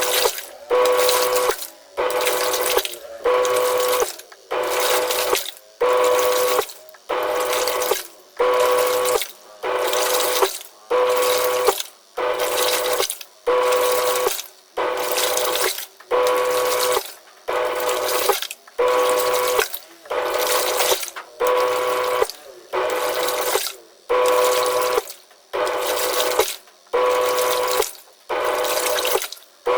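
Twin-tub washing machine's wash tub churning water and clothes: the pulsator runs in short spells about once a second, each with a steady motor hum, and stops briefly between spells as it reverses direction.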